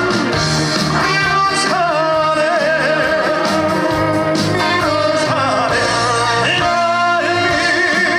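Trot song performed live: a male voice singing with wide, wavering vibrato over loud instrumental backing music.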